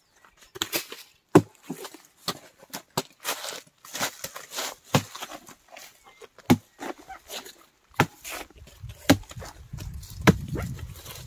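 Machete blade chopping repeatedly into a felled banana stem, cutting it up for pig feed: sharp, irregular chops, several close together at times. A low rumble comes in about eight seconds in.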